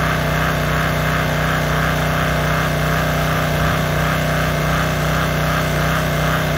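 Gas-engine pressure washer running steadily at constant speed while its wand sprays water onto concrete, the small engine's even hum under the hiss of the spray.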